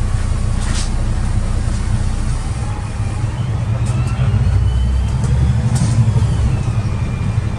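Karosa B961 city bus engine running under way, a steady deep rumble heard from the cab. About three seconds in, a thin rising whine joins as the bus picks up speed and the sound grows a little louder.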